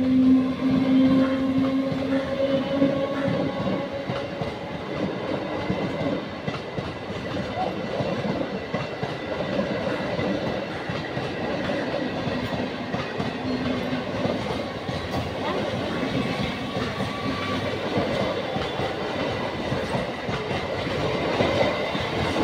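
Passenger train passing close by. A steady horn note sounds in the first few seconds, then a continuous rattle and clatter of the coaches' wheels over the rail joints as carriage after carriage goes by.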